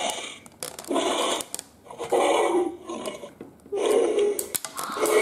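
A series of short growling dinosaur roars, about three of them, each under a second long, with brief quiet gaps between.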